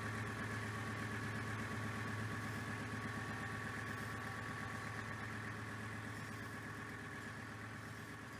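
Kubota M4900 tractor's diesel engine running at a steady idle, an even hum that grows slightly quieter toward the end.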